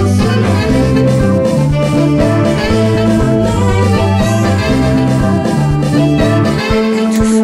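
Background music led by guitar, with a bass line stepping under it; the bass drops away near the end.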